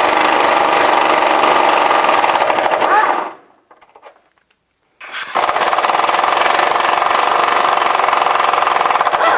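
Impact wrench driving a 10 mm socket on an extension, hammering nuts loose in two long runs with a pause of about a second and a half a little past a third of the way in.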